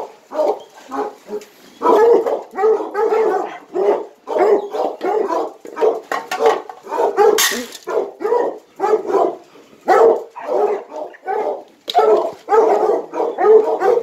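Bear hounds barking over and over at feeding time, short calls about two or three a second without a break.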